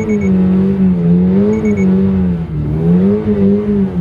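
Toyota GR86's 2.4-litre flat-four engine revving up and down over and over as the throttle is worked on a slippery snow-covered road. A short triple beep sounds twice, near the start and about a second and a half in.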